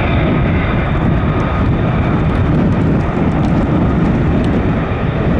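Loud, steady jet-engine rumble from F-35A fighters, each with a single turbofan, running as they taxi past.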